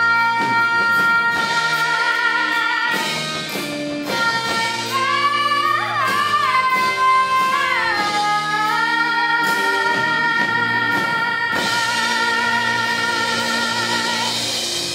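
A woman belting the closing phrases of a musical-theatre song over a backing accompaniment: a sliding run of notes, then one long held high note with vibrato that ends the song.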